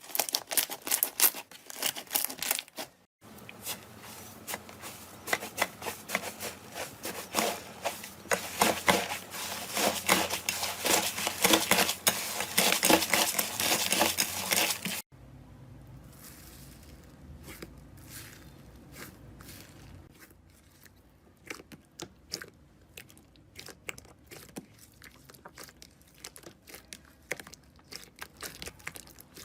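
Hands squishing and stretching slime, giving dense crackling and popping clicks. The sound cuts out briefly about three seconds in, then stops abruptly about halfway and gives way to quieter, sparser crackles.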